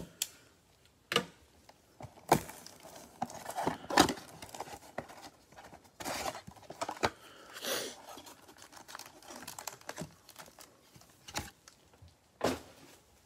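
Plastic shrink wrap being cut and torn off a cardboard Bowman Chrome mega box, then the box flaps opened and the wrapped card packs tipped out onto the table. It comes as a string of crinkles, tears and scrapes, with sharper snaps at about one, two and four seconds in and another near the end.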